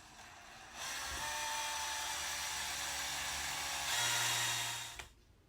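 Power drill driving a screw into a molly in an aluminum rod: a steady motor whine that starts just under a second in, rises in pitch and gets louder about four seconds in, and stops about a second before the end.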